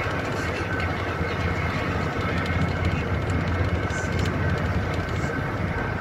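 Bus engine and tyre noise heard from inside the moving bus: a steady low drone with road hiss and light rattling clicks.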